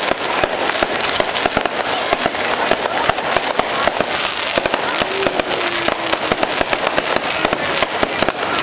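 Aerial fireworks going off in a rapid, unbroken string of sharp bangs and crackles, many to the second.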